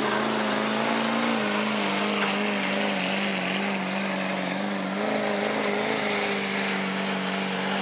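Diesel pickup truck engine held at high revs under heavy load while pulling a truck-pull sled, its thick black smoke a sign of heavy fuelling. The note stays high and steady, drops slightly about a second in, and wavers a little after that.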